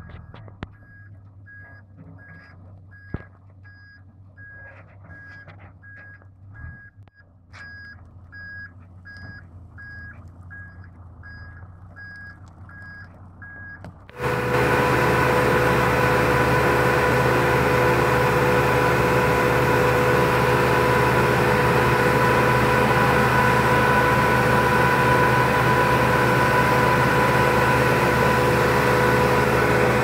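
A reversing alarm beeps steadily over a low engine hum. About 14 seconds in, the sound jumps suddenly to the loud, steady running of a Bandit Model 1890 whole-tree woodchipper's diesel engine, heard close up.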